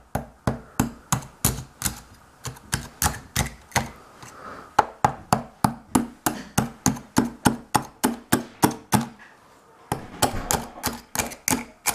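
Sharp knife tip tapping and chipping through eggshells, clicking about three times a second. The clicking breaks off briefly near the end, then starts again on the next egg.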